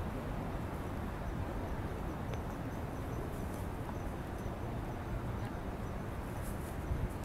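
Steady low background rumble of a city waterfront, with faint light ticks about four times a second through the latter part.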